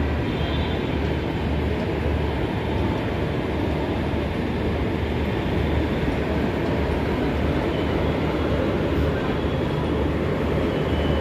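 Garib Rath Express passenger coaches rolling along the track: a steady rumble of train wheels on rails.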